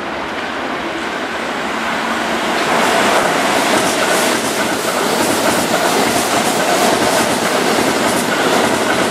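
Keihan 3000-series electric train running close past at low speed, its wheels clattering over rail joints and points. The running noise grows louder about three seconds in as the cars pass nearest and then holds steady.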